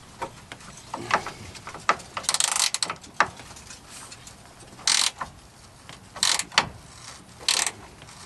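Ratchet wrench clicking in several short bursts with scattered clanks, working a rusted bolt on an RV black-water tank gate valve.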